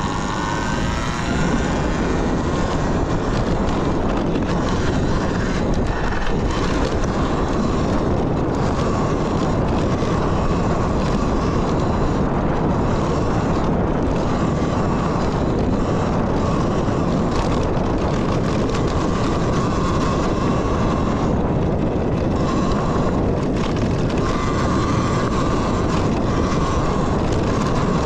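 Talaria Sting electric dirt bike under way: a steady rush of wind and trail noise, with the electric motor's whine coming and going at a steady pitch.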